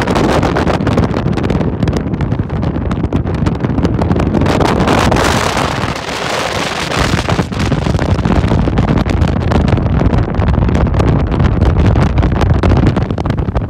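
Strong gusty wind buffeting the microphone, a loud, ragged rumble, the wind of an approaching hurricane.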